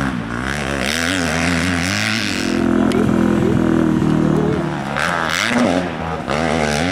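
Motocross bike engines revving, the pitch rising and falling repeatedly as the throttle is worked, then held at a steady pitch for a couple of seconds in the middle before swinging up and down again near the end.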